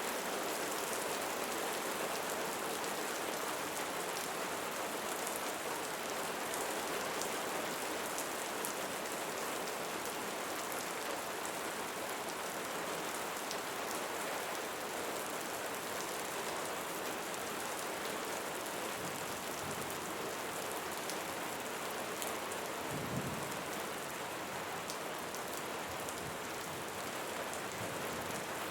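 Steady rainfall: a dense even hiss with individual drops ticking on a surface. A short low rumble comes about two-thirds of the way through.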